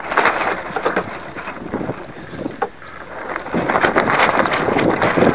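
Gusty wind buffeting the microphone of a camera mounted on an RC yacht's deck, loud and rushing in gusts: strong at the start, easing off, then building again past the middle. A few short sharp ticks come through it.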